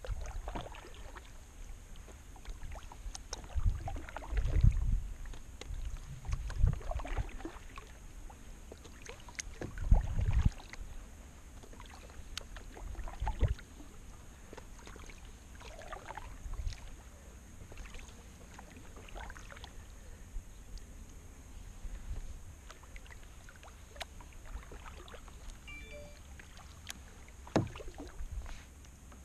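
Canoe paddling: the paddle dips and splashes in the water at irregular strokes every second or two, with occasional low thumps and knocks against the boat.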